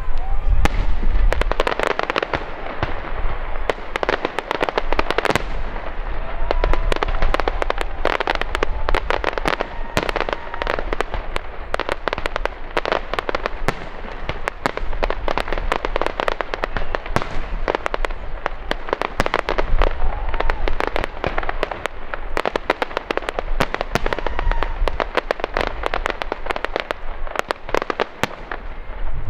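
Aerial fireworks display: a dense, continuous crackle of rapid pops from bursting shells. Deep booms come at the start and again about two-thirds of the way through.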